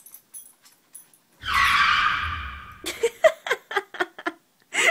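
A Yorkshire terrier slipping and scrambling on a hardwood floor: a loud scuffle of about a second and a half, followed by quick light clicks and short bursts of laughter.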